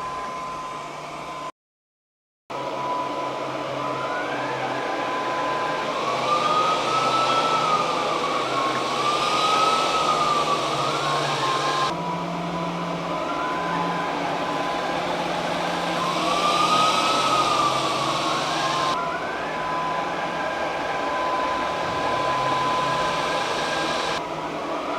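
Fmart FM R330 robot vacuum running: a steady high motor whine over a low hum and rushing air, its pitch now and then swelling up and back down. The sound cuts out for about a second near the start and changes abruptly a few times.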